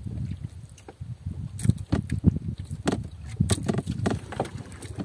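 Water slapping against the hull of a small wooden boat in irregular splashes, with several sharp knocks, the loudest in the middle.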